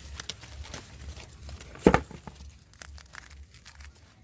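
Dry maize leaves and husks rustling and crackling as maize plants are handled during harvesting. There is one louder knock about two seconds in.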